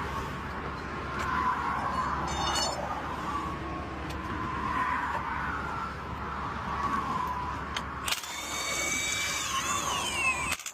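Freeway traffic going by steadily, swelling and fading as vehicles pass. Near the end a high whine runs for about two seconds, falling in pitch before it cuts off.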